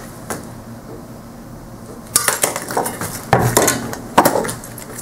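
A hammer striking the glass neck of an already-vented CRT picture tube, breaking it off so the electron gun falls out. Three bursts of sharp glassy cracking and clinking come about two, three and four seconds in.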